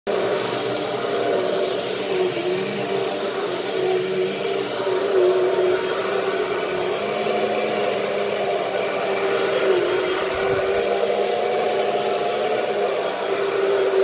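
Vacuum cleaner running steadily: a constant whining hum with a thin high tone above it.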